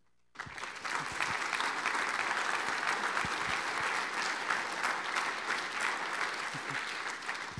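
Audience applauding, starting abruptly about a third of a second in and thinning out near the end.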